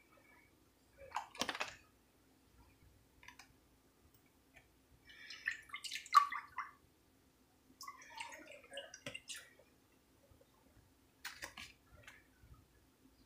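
Soymilk poured from a carton into a stainless steel saucepan, splashing in two pours in the middle, with short knocks from the carton before and after.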